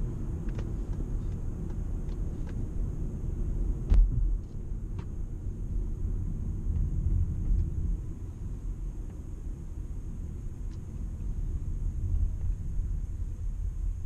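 Toyota Camry Hybrid on the move: a steady low rumble of road and running noise, with a few faint clicks and one sharp thump about four seconds in.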